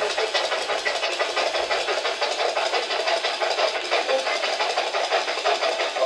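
Spirit box sweeping through radio frequencies: loud, choppy radio static that stutters rapidly.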